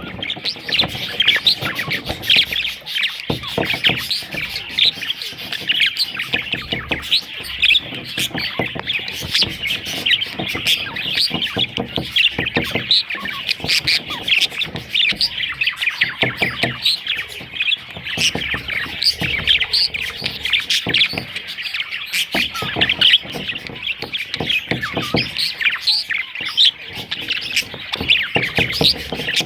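A flock of budgerigars chattering: many overlapping short chirps and squawks in a dense, unbroken stream.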